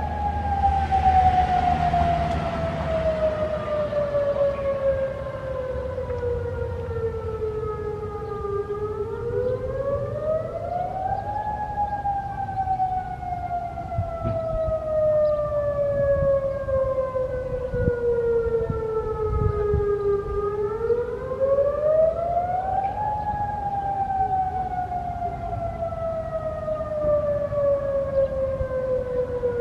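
Federal Signal Modulator 6048 outdoor warning siren sounding a wail. Its tone glides slowly down over about eight seconds, sweeps back up over about three, and does this twice more, so the pitch keeps rising and falling.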